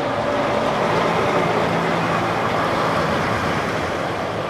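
Diesel container truck pulling past: steady engine running with tyre and road noise, easing slightly toward the end.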